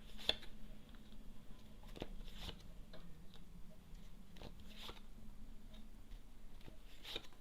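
A few soft, scattered clicks and taps, about six in all at uneven intervals, over a faint steady low hum.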